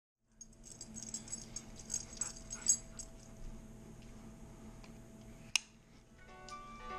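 Husky making small vocal noises and fussing as gloved hands rub its head, with a sharp click about five and a half seconds in. Upbeat background music starts near the end.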